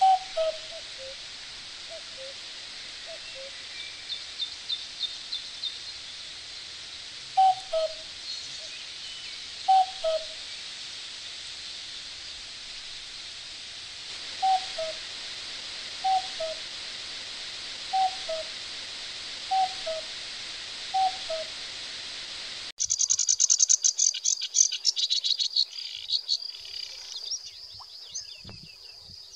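Common cuckoo calling its two-note "cuckoo", the second note lower, repeated every couple of seconds, with a short run of high chirps from another bird about four seconds in. About 23 seconds in, the sound cuts to a sedge warbler's rapid, high, chattering song.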